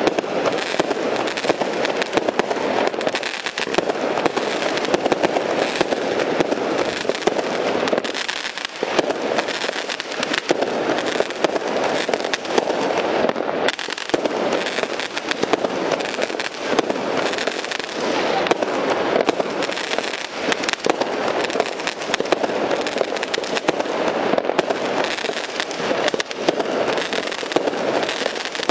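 Aerial fireworks display: shells bursting overhead in a dense, unbroken run of bangs and crackling.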